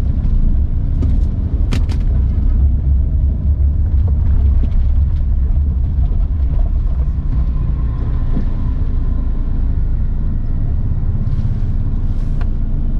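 Steady low rumble of a Maruti Suzuki Alto's engine and road noise heard inside the cabin while driving, with a single sharp click a little under two seconds in.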